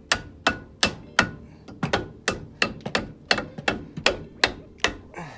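Rubber mallet striking the hub of a newly fitted brake rotor in a steady series of sharp knocks, about three a second.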